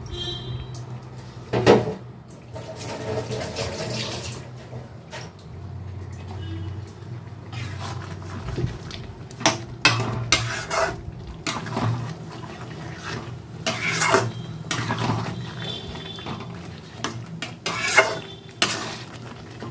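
A metal spoon knocking and scraping against a cooking pan while stirring thick chicken gravy, with several sharp clinks, over a steady low hum.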